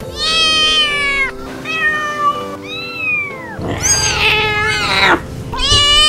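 Kittens meowing: five loud, drawn-out meows of about a second each, one after another, several falling in pitch at the end.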